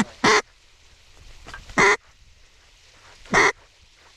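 Three loud single quacks on a mallard duck call, evenly spaced about a second and a half apart, calling to incoming ducks.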